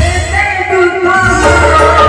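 Odia stage-show song: a voice singing over music with a heavy low beat. The low beat drops out briefly about half a second in and returns after about a second.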